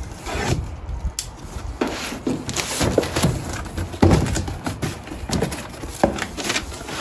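A cardboard parts box being opened and its cardboard packing handled, in a string of irregular rustles, scrapes and knocks.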